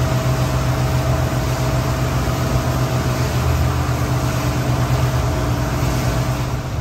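Motorboat engine running steadily underway, an even low drone over the rush of water along the hull.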